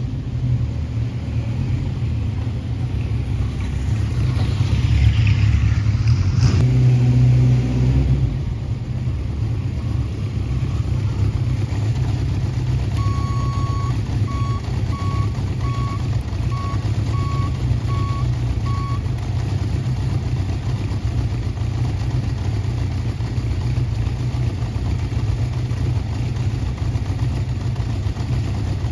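1975 Honda CB750 air-cooled inline-four running as it rides up, louder for a few seconds as it pulls in close, then idling steadily. About halfway through, a run of short beeps, less than a second apart, sounds over the idle.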